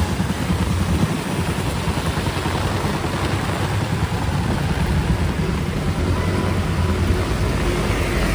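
Heavy rain falling steadily on a city street, with motor traffic running under it as a continuous low rumble.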